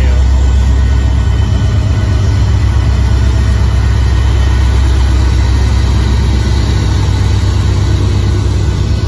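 Union Pacific diesel-electric locomotives passing close by, their engines running with a loud, steady low rumble.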